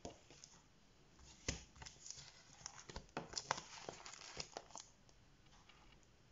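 Plastic punched sheet protectors holding coloured pages crinkling and rustling as they are handled and slid over one another, a string of crackles from about a second in until near the five-second mark, after a single click at the start.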